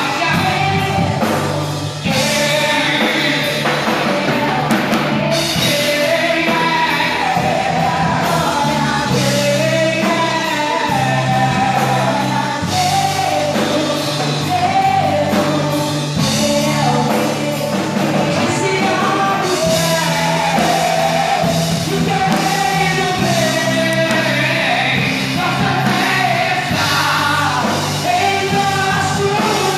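Rock-style worship song from a band, with a singer's melody over steady held bass notes and cymbal-like strokes.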